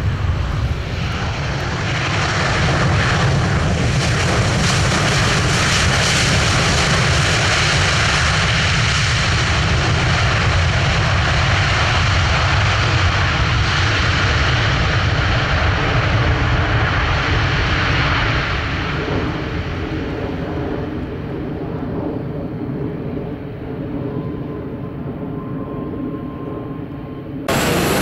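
Boeing 737-800's CFM56-7B jet engines roaring on the landing rollout, most likely in reverse thrust: the roar builds about two seconds in, holds loud, then fades from around eighteen seconds as the aircraft slows and moves away. The sound changes abruptly just before the end.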